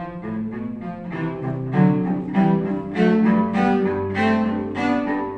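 Solo cello played with the bow: a melodic phrase of sustained notes, each rich in overtones, changing pitch about twice a second.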